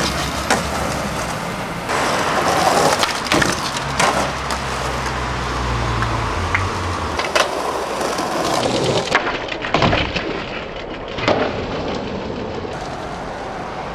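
Skateboard wheels rolling on rough asphalt, broken by a handful of sharp wooden clacks as the board's tail pops and the board hits the concrete ledge and the ground.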